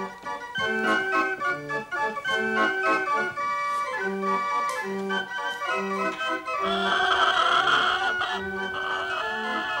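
Hand-cranked barrel organ playing a lively tune: sustained organ-like notes over a regular, bouncing bass pattern. A brighter, shimmering sound rides over it for a second or two about seven seconds in.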